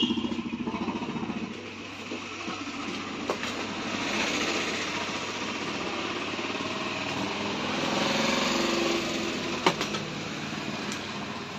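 A small engine running steadily, swelling about four seconds in and again around eight seconds in, with a few light clicks.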